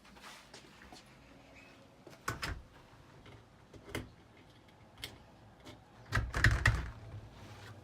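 A door being handled: scattered clicks and a couple of knocks, then a louder cluster of thumps and clatter about six seconds in.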